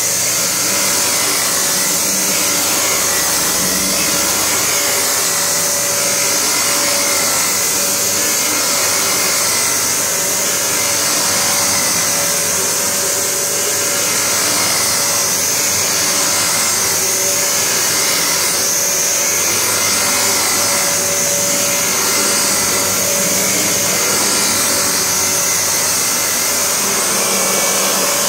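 Panasonic MC-UG729 QuietForce upright vacuum cleaner running on carpet, a steady motor hum and hiss with one steady tone, swelling and easing slightly as it is pushed back and forth. Its brush roll sounds rough.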